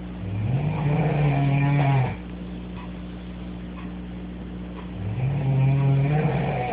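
A girl snoring in her sleep with a voiced, bleating snore like a sheep: two long snores of about two seconds each, about three seconds apart, each rising a little in pitch as it starts. A steady low hum lies underneath.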